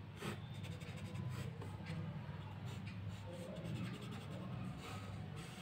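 Scratching strokes of a writing tip drawing lines on paper, over a low steady hum.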